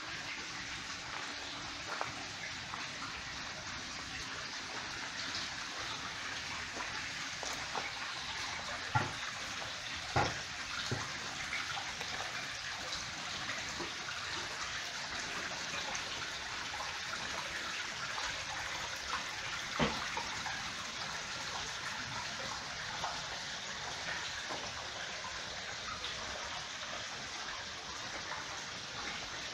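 Steady rush of running water, with a few light knocks about nine, ten and twenty seconds in.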